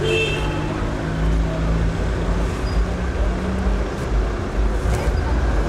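Street traffic noise: a motor vehicle engine running close by with a deep, steady hum over general city street noise.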